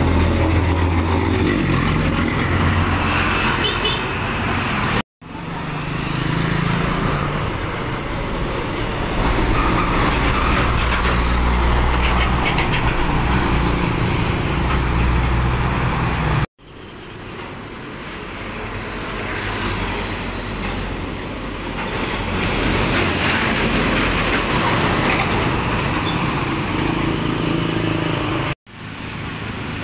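Heavy trucks passing close by, their diesel engines running loud and low. The sound drops out abruptly three times, about 5, 16 and 28 seconds in, where separate clips are joined.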